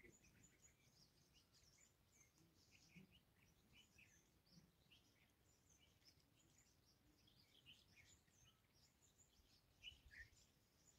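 Near silence with faint, scattered bird chirps, a slightly stronger one about ten seconds in.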